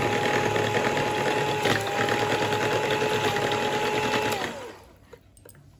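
Philips electric hand mixer running at a steady speed, its beaters whisking thin cake batter, with a steady motor whine. About four and a half seconds in, the motor winds down in pitch and stops.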